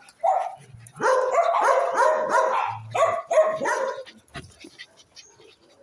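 Young dogs barking and yipping in quick succession, a string of short high calls for about three seconds, as they jump up to greet a person.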